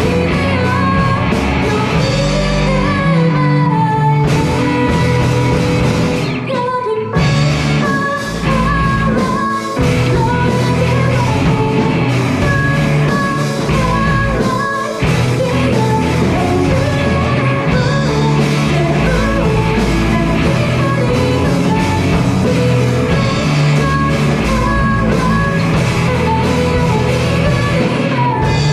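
A rock band with lead vocals, two guitars, drums, bass and keyboard plays a song, the singer's melody carried over a full, steady accompaniment. The band drops out briefly about seven seconds in.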